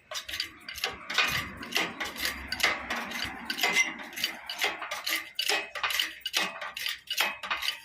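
Irregular metallic clinks and clicks, several a second, from hand tools and metal parts as a seized diesel engine is taken apart for removal.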